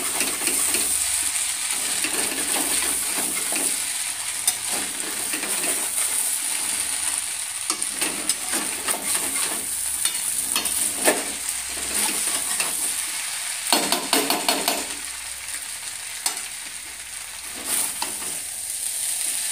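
Noodles sizzling as they are stir-fried in a metal pan on a gas stove, with a spatula scraping and tapping against the pan throughout. A cluster of louder scrapes comes near the end.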